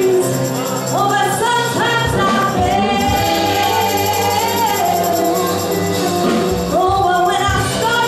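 Gospel song: a singer's voice over instrumental accompaniment with a quick steady beat, holding one long note through the middle.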